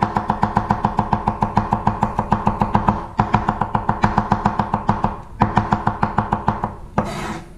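Chef's knife chopping rapidly on a wooden cutting board, about eight quick strokes a second, the board ringing with each stroke. The rhythm breaks off briefly twice and then stops near the end.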